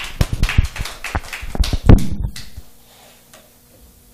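A rapid clatter of knocks and clicks, as of things being handled, over the first two seconds or so, the loudest near two seconds in, then only a faint steady hum.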